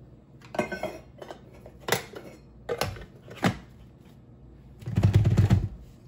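Stainless steel grounds bin of an OXO Brew burr coffee grinder knocking several times against the grinder's body as it is handled and set back in place. About five seconds in comes a rapid run of clicks as the grind-size ring is twisted toward its finest setting.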